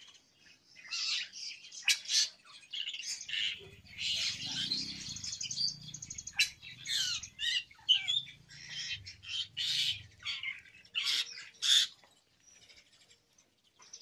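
Many caged starlings, captive-bred Asian pied starlings (jalak suren) and their crosses with black-winged starlings (jalak putih), calling at once with overlapping squawks and chirps. The calling dies down near the end.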